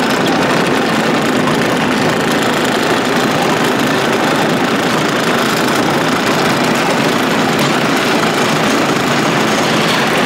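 John Deere 2305 compact tractor's small three-cylinder diesel engine running steadily as the tractor is driven along.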